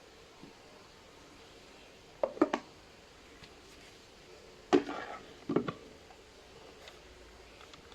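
Light knocks and clicks of small objects being handled on a hard surface: a quick group of three about two seconds in, then a sharper knock and two more a few seconds later.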